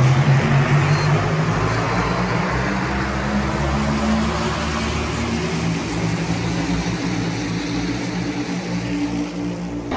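A pack of NASCAR Cup Series stock cars' V8 engines running hard together as the field takes the green flag and races past. It is a loud, steady, dense drone of many engines at once, their pitches shifting slightly as the cars go by.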